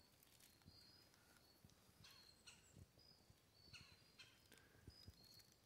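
Near silence: faint footsteps shuffling and crunching in dry leaf litter, with a few faint high chirps.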